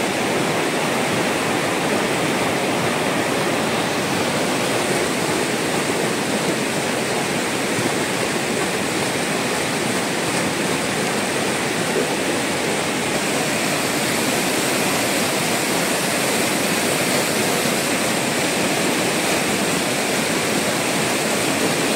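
Steady, loud rush of fast-flowing river water tumbling through shallow rapids over rocks.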